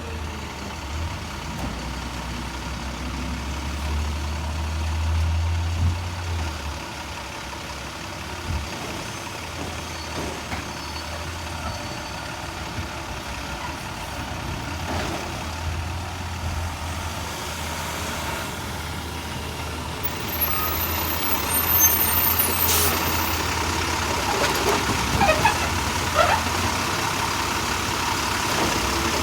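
Garbage truck's diesel engine running steadily, swelling briefly a few seconds in, with a few knocks and squeals from the truck's working gear in the last several seconds.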